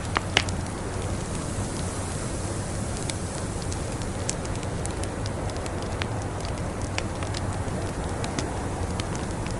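Wood fire crackling, a steady hiss with scattered sharp pops, the loudest two snaps coming close together just under half a second in.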